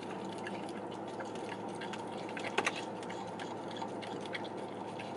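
An English bulldog–beagle mix licking whipped cream out of a small paper cup: wet lapping and small smacking clicks over a steady low hum, with a quick run of sharper clicks about two and a half seconds in.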